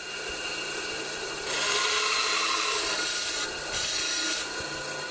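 Mastercraft benchtop bandsaw running with a steady motor hum, its blade cutting through a wooden board. The cut grows louder and hissier about a second and a half in and eases off again past four seconds.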